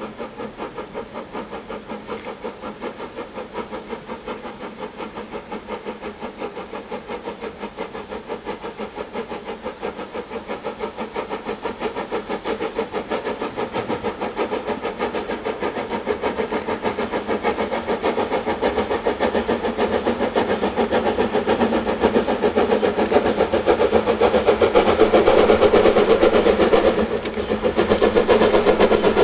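Somerset & Dorset 7F 2-8-0 steam locomotive No. 53809 working hard with a freight train. Its exhaust beats come fast and even from the chimney and grow steadily louder as it approaches.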